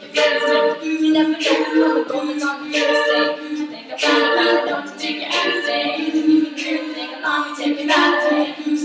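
All-female a cappella group singing a pop song in close, sustained harmony, with sharp mouth-made percussion ticking out the beat.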